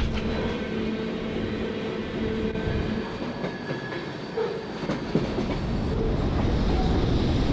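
Freight train of covered hopper cars rolling along the rails: a steady rumble and clatter of wheels on track, with a faint steady metallic whine during the first few seconds.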